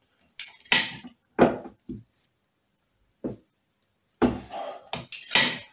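A steel socket and torque wrench being fitted onto a clutch hub nut: a series of short metallic clinks and knocks with gaps between them, a cluster of them near the end.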